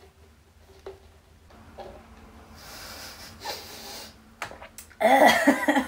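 A woman breathing out audibly, a few soft clicks, then near the end a short, loud wordless vocal noise.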